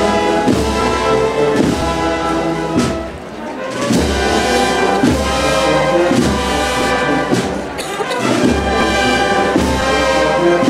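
A Spanish Holy Week wind band (banda de música) playing a processional march, with sustained brass chords to the fore.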